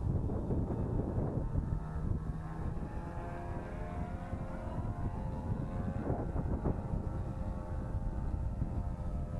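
Nitro glow engine of a radio-controlled model airplane running in flight, a high whine whose pitch drifts up and down, over wind noise on the microphone.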